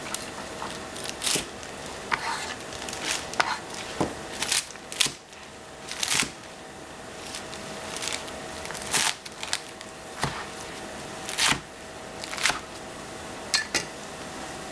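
Chinese cleaver chopping rainbow chard on a plastic cutting board: slow, uneven knocks of the blade on the board, roughly one a second.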